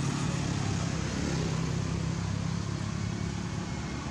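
Steady low rumble of a running engine, with a hiss over it.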